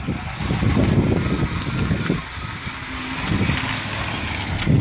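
2011 BMW 750i's 4.4-litre twin-turbo V8 running as the car pulls away under power, driven off to test the transmission.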